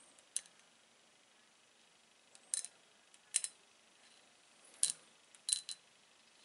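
Small neodymium bar magnet hanging on a strip, clicking sharply as it snaps onto and taps against meteorite stones, about six clicks in all.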